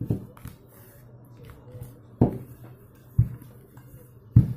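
Wooden rolling pin rolling out a round of dough on a table, with four dull knocks of the pin against the tabletop, the last two loudest. A low steady hum runs underneath.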